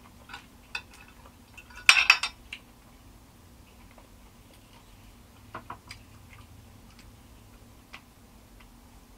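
Tableware clinking and clattering at a meal: a quick run of loud clinks about two seconds in, then a few softer clicks.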